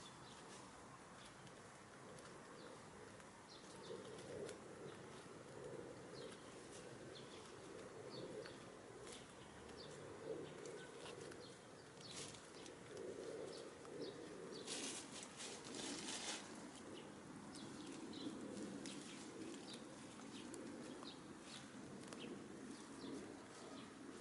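Hens foraging in grass and dry fallen leaves: many light pecks and rustles over a soft, low, uneven murmur, with one louder rustle lasting about a second and a half just past the middle.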